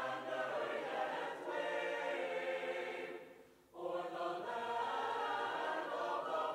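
A choir singing a slow piece in long held chords. The singing fades almost away a little past halfway, then the next phrase begins.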